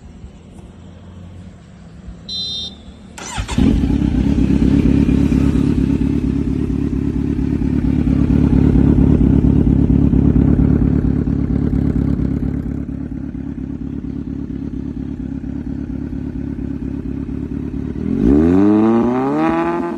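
Kawasaki Z900 inline-four motorcycle engine starting about three seconds in and running at a steady, raised idle that settles lower after several seconds. Near the end it is revved several times, the pitch sweeping up and down with each blip of the throttle.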